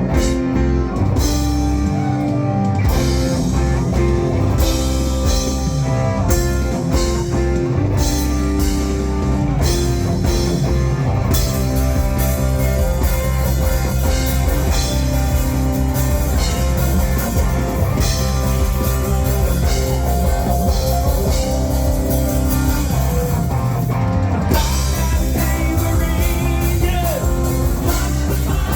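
Live rock band playing a yacht rock song, with guitar and drum kit over a steady bass.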